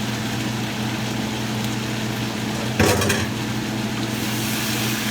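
A single sharp knock of kitchenware against a stew pot about three seconds in, over a steady low hum and hiss.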